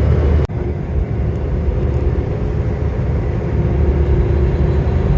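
Steady low road and engine rumble of a truck driving on a highway, heard from inside the cab. The sound breaks off with a click about half a second in, then carries on.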